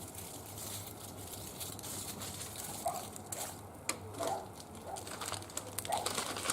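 Wood fire crackling in a barbecue grill, with scattered small pops over a soft hiss.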